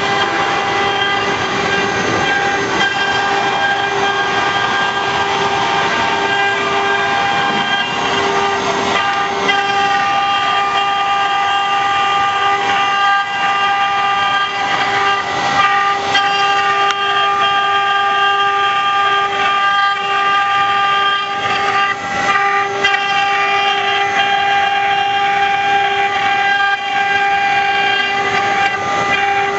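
Spindle of a four-axis rotary CNC engraving machine running with a steady high whine while its bit carves wood, with rough cutting noise underneath.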